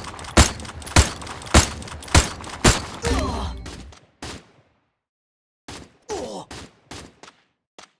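A rapid series of six sharp bangs, about one every half second, then a longer burst that dies away, followed after a pause by a few quieter knocks and clicks.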